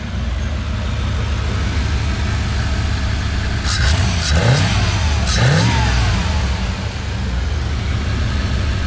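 A 305 TBI small-block V8 running at idle in a freshly tuned-up car, blipped twice in quick succession around the middle so the pitch rises and falls back, with a few short sharp clicks among the blips.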